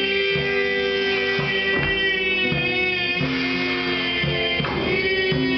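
Live band music: guitars play an instrumental passage over a moving bass line, with no vocals.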